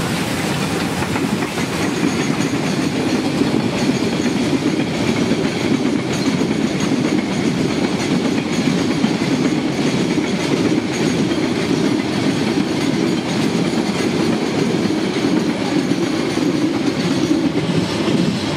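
Coaches of a narrow-gauge steam train rolling past close by, the wheels running steadily over the track.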